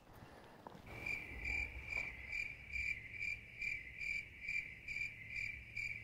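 An insect chirping steadily: one high-pitched chirp repeated about three times a second, starting about a second in, over a faint low rumble.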